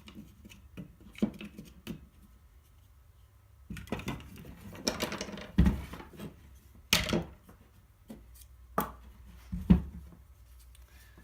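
Parts of a partly disassembled DeWalt sander being handled: scattered clicks and knocks, with a short scraping rustle about four seconds in.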